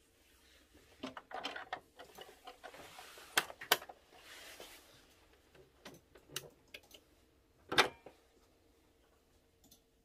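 Small plastic clicks and taps from a sewing machine's drop-in bobbin being set into its bobbin case and the clear bobbin cover plate being fitted, with a soft rustle partway through and a louder knock near the end.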